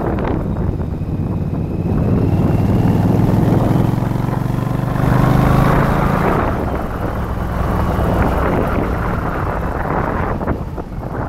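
Yamaha Virago XV1100's V-twin engine running under way, with wind rushing over the microphone. The engine grows louder for a few seconds in the middle, then eases off.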